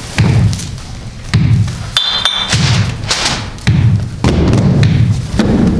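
A series of heavy thuds on the stage, about one a second, each ringing on briefly in the hall, with sharper knocks and clatter between them and a short high tone about two seconds in.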